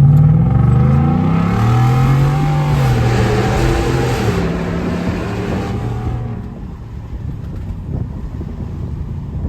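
Ford 5.0 Coyote V8 of a 2018 F-150 with a custom cat-back exhaust, accelerating hard through its 10-speed automatic: the exhaust note climbs, drops back at each upshift and climbs again. After about six seconds the throttle eases and it settles to a quieter, steady cruise, heard from inside the cab.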